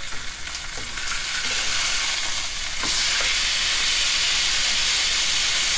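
T-bone steak sizzling in hot oil in a frying pan as it is turned over with metal tongs. The sizzle jumps louder about halfway through, once the unseared side meets the hot pan, and then holds steady.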